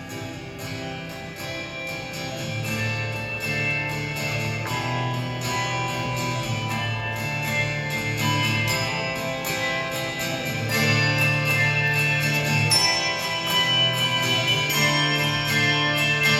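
Handbell choir playing a slow piece: many bells ringing together in sustained chords over a steady low bass, growing louder through the passage and fuller about eleven seconds in.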